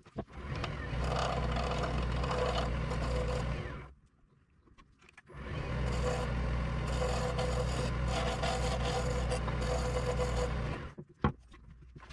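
Wood lathe running with a turning tool cutting a spinning black walnut and epoxy duck call blank: a steady motor hum under a rough scraping of the tool on the wood. It comes in two stretches of about four and five seconds, each cutting off abruptly.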